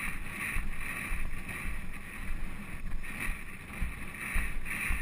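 Wind rushing over the microphone of a camera worn by a rider on a galloping polo pony, with a rhythmic pulse about twice a second from the horse's stride.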